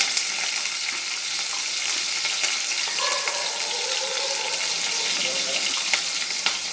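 Sliced onions and green chillies sizzling in hot oil in a pressure cooker, a steady frying hiss as they are stirred, with a couple of sharp clicks about six seconds in.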